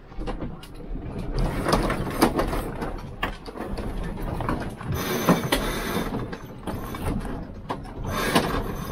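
A sailboat's sheet being hauled in hand over hand during a tack, with irregular clicking from the winch and rope, over rushing wind and water.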